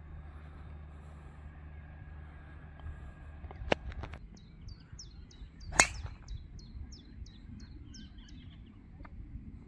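A golf club striking a ball: a light click near four seconds, then a much louder, sharp crack about six seconds in. A bird chirps straight after, a quick series of short falling notes about three a second.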